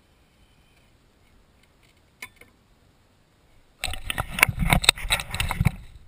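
A single metal click a little over two seconds in, then about two seconds of loud, rapid metallic rattling and knocking as a Suzuki Burgman 400's rear brake caliper is worked loose and pulled off the brake disc.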